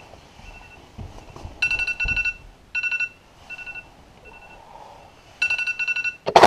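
Electronic wake-up alarm beeping. Faint single beeps come first, then loud fast runs of beeps about a second and a half in, near three seconds and again near the end. A sharp knock comes right at the end.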